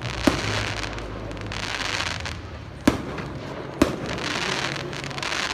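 Aerial fireworks bursting: three sharp bangs, one right at the start and two close together just past the middle, with continuous crackling between them.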